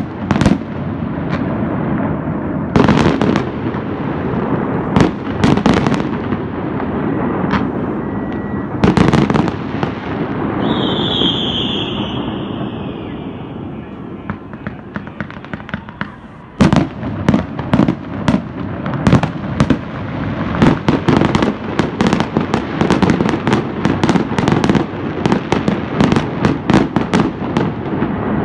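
Fireworks going off: a continuous crackle with frequent loud bangs. About ten seconds in, a high whistling tone slides slightly downward for a couple of seconds; after a quieter stretch past the middle, a sudden sharp bang starts a dense run of rapid bangs.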